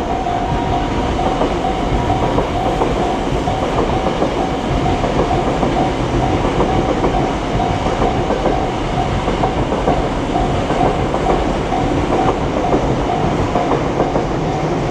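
A train running past at close range, its wheels clattering over the rail joints, while a level-crossing warning bell keeps dinging in a quick, even repeat.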